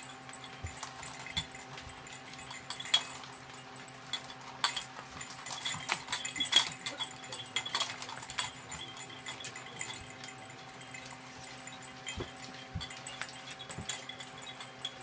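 Boxer puppies playing and scuffling: irregular clicks and taps, busiest a few seconds in, over a steady low hum.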